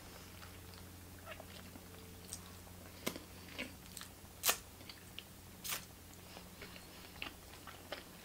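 A person chewing hamburger crumbs, with lip smacks and finger licking giving a few sharp clicks; the loudest comes about four and a half seconds in. A faint steady low hum runs underneath.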